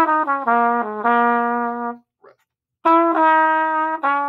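Trumpet playing a short blues lick: a run of notes stepping down to a long held low note. After a pause of about a second, the phrase starts again.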